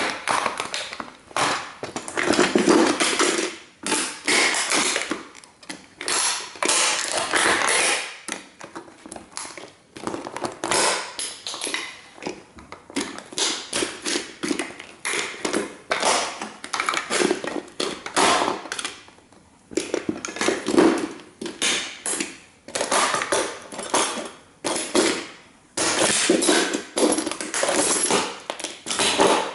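Sneaker soles stomping on and crushing a 1:18 scale model toy car: a steady run of crunching and cracking, with short pauses between bouts.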